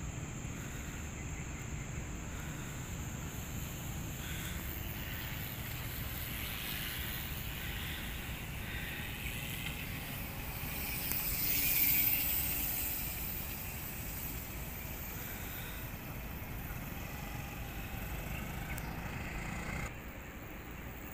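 Steady outdoor background noise, a low rumble with a hiss over it, swelling louder for a couple of seconds about halfway through.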